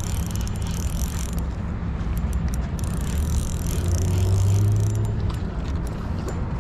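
Steady hum of motor vehicle engines, with one engine growing louder for a second or so about four seconds in.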